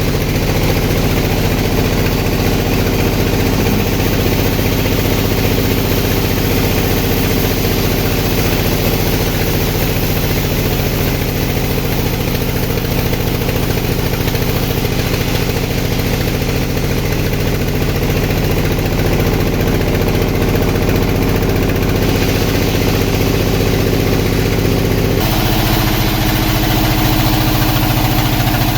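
Engine-driven sawmill machine running steadily, with a stack of even engine tones; about 25 seconds in its note changes suddenly to a different pitch.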